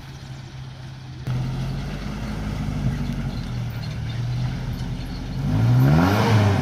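Restored classic truck's engine running steadily, then revving up and dropping back near the end.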